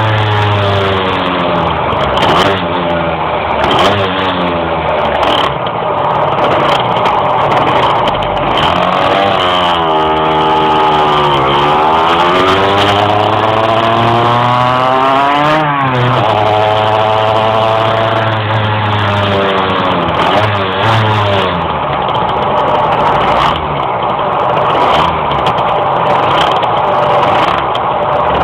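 Two-stroke moped engine under way, its pitch climbing and falling several times as the throttle is worked, with a slow climb in the middle that peaks and drops back. The engine is struggling to rise in the revs.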